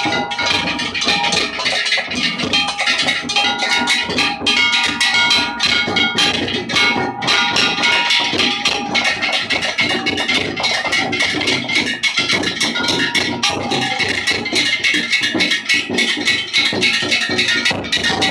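Ishidori festival cart music (hayashi): a dense, rapid din of struck hand gongs and drums that never pauses, with a stepping melody above it.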